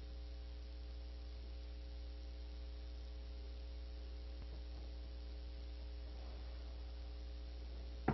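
Steady low electrical mains hum with faint hiss, unchanging throughout, and no other distinct sound.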